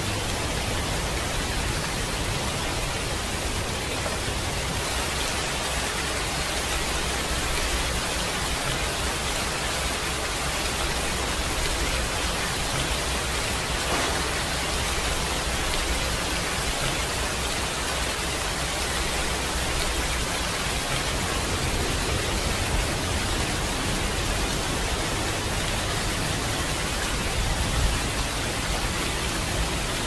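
Tall waterfall plunging into its plunge pool: a steady, unbroken rush of falling water.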